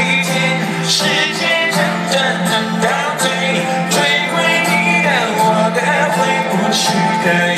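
A live band playing a song with singing, heard loud through the stage sound system from within the audience.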